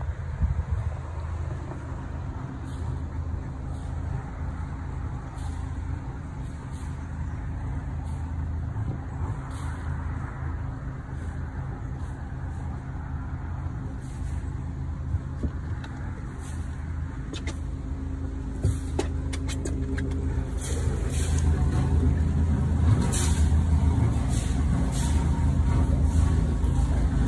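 Motor cruiser's inboard engine running at a steady low hum as the boat motors along. The hum gets louder over the last several seconds as the boat passes under a low concrete bridge.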